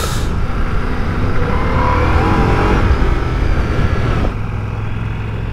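Ducati Multistrada V4 Rally's V4 engine running under way on a gravel track, its pitch rising and falling a little around two seconds in, then easing slightly about four seconds in.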